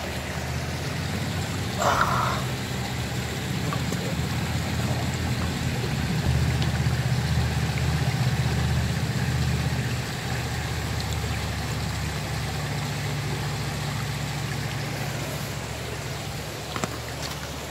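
A river flowing over rocks, a steady rush with a low rumble underneath. One brief, louder noise comes about two seconds in.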